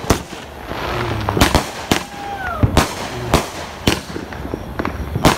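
Aerial fireworks going off: an irregular string of sharp bangs and cracks, about ten in five seconds, with the loudest bang near the end.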